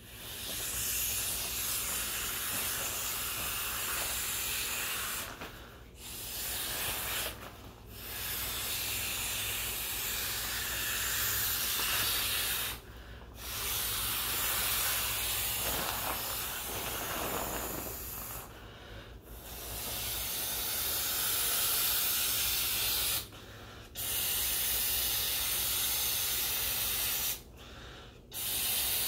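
Mouth-inflating a vinyl swim ring: long breaths blown through the valve, each lasting several seconds, with short silent breaks for breath in between.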